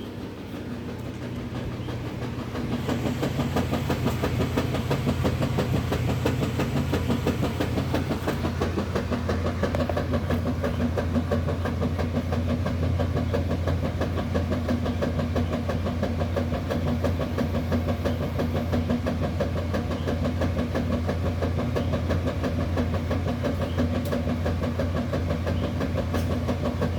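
Washing machine running and vibrating: the level builds over the first few seconds, then settles into a steady loud hum with a fast, rattling vibration.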